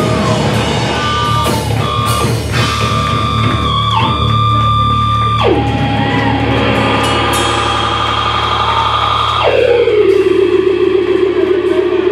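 Rock band playing loud live: distorted electric bass with long held notes that slide down in pitch twice, over a drum kit.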